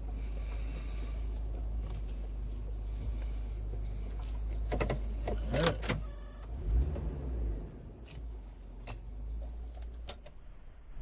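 Inside a vehicle's cabin with the engine running: a steady low rumble. There is a cluster of clicks and knocks about five to six seconds in, followed by a low thud. Faint high insect chirps repeat about three times a second.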